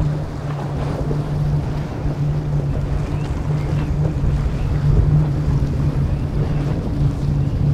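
Outboard engines of a large center-console boat running at speed through choppy inlet water, a steady low drone over the rush of spray and waves, with wind buffeting the microphone.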